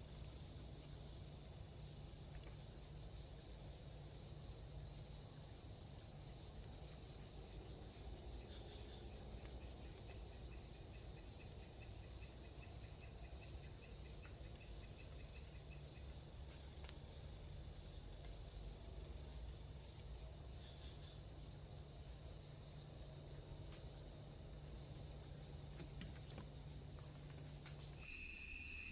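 Faint, steady high-pitched trilling of night insects in a forest, unbroken and even, over a faint low hum. About a second before the end it switches abruptly to a lower-pitched insect trill.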